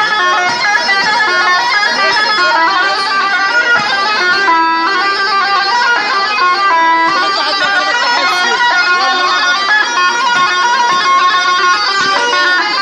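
Levantine wedding music: an instrumental passage led by a mijwiz, the double-reed folk clarinet, playing a fast ornamented melody with a few briefly held notes, over band accompaniment.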